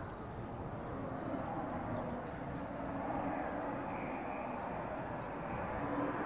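Air Tractor AT-500 series crop duster making a low pass over a field, its engine and propeller a steady drone.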